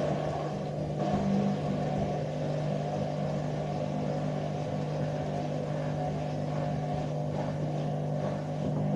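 Washing machine running with an unbalanced load, its motor humming steadily at a constant pitch.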